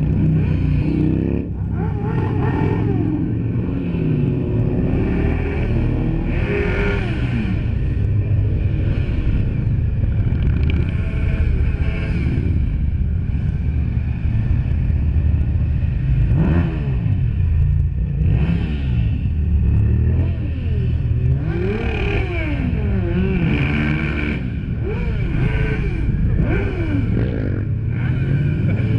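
A long procession of motorcycles, sport bikes and cruisers, riding past one after another: a steady mix of engines, each one rising and falling in pitch as it revs and passes.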